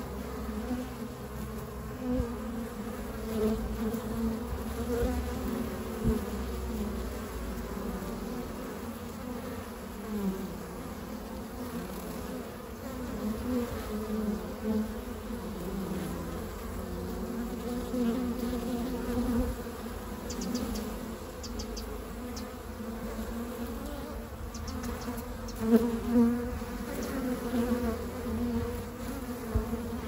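Honeybees buzzing at a hive entrance: a continuous droning hum of many wingbeats that wavers in pitch and swells as bees fly close past, loudest briefly a few seconds before the end.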